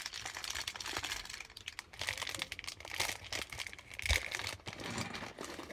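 Small clear plastic bag of LEGO pieces crinkling as hands squeeze and handle it, with a steady run of small crackles.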